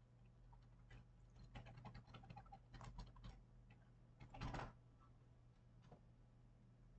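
Faint scattered clicks from computer input at a desk, with a short, louder scrape-like burst about four and a half seconds in, over a low steady electrical hum.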